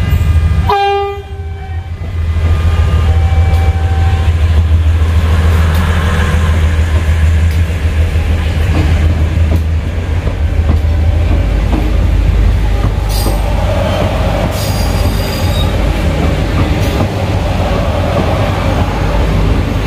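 Prameks diesel multiple unit passing close by. Its horn sounds near the start and again about three seconds in, followed by the steady low drone of its diesel engines and the rumble of its wheels on the rails, with squeals and clicks as the later cars go past.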